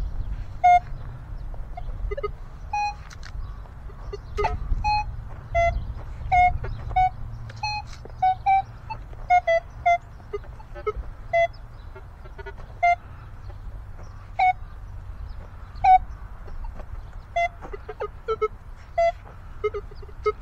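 Minelab Equinox 900 metal detector giving short target beeps at several pitches as its coil is swept over buried metal, mostly one mid tone with some higher and lower ones. Near the end the beeps come quicker and lower.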